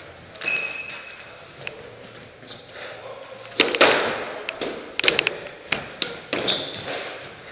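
Squash rally: a squash ball struck by rackets and smacking off the court walls, a string of sharp cracks from a few seconds in, the loudest just under four seconds in. Short high squeaks of court shoes on the wooden floor come in between.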